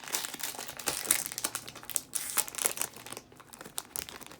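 Foil wrapper of a Pokémon trading-card booster pack crinkling as it is handled and opened by hand: a dense run of small irregular crackles with a short lull about three seconds in.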